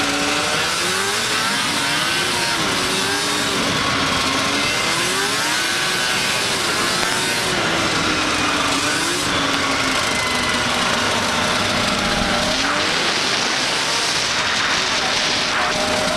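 Yamaha V-Max 4 800 snowmobile's four-cylinder two-stroke engine at speed, its pitch rising and falling with the throttle over the first half, then holding steadier, dipping once near the end and climbing again. A steady rushing noise of wind and track runs underneath.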